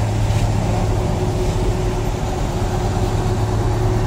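Launch boat's engine idling alongside a cargo ship: a steady, loud low hum with a fainter steady whine above it.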